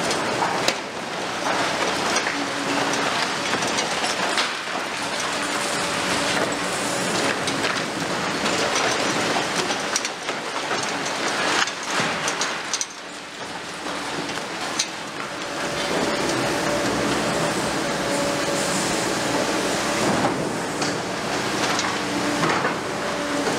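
Broken concrete and masonry falling and clattering without a break, with many sharp knocks, as the high-reach attachment of a Liebherr R 950 Demolition excavator tears into a multi-storey building. A faint steady hum from the machine comes and goes underneath.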